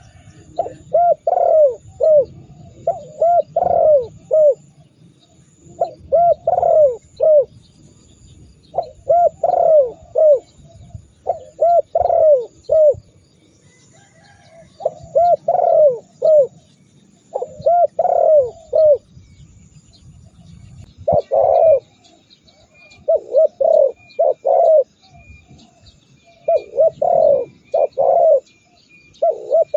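Spotted doves cooing over and over in short phrases of three to five arched coos, a phrase every two to three seconds. Faint high chirps of small birds sound behind them.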